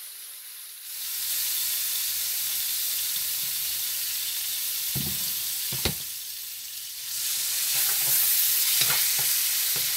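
Diced chicken frying in vegetable oil in a wok, a steady sizzle that swells about a second in as more oil is poured into the hot pan. It eases off around the middle and rises again near the end as a wooden spatula stirs the pieces, with a few sharp knocks against the pan.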